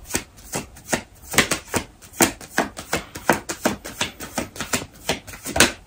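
A deck of tarot cards being shuffled by hand: an irregular run of short card clicks and slaps, several a second.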